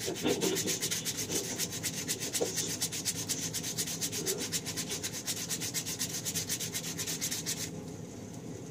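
A small part being rubbed down by hand with rapid, even back-and-forth scratchy strokes, which stop near the end.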